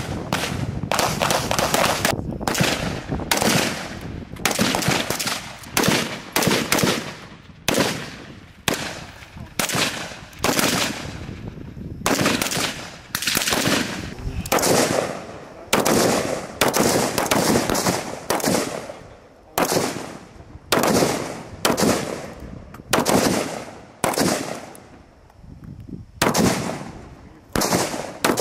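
Rifle gunfire: a long string of single shots, about one or two a second, each with a sharp crack that trails off in echo.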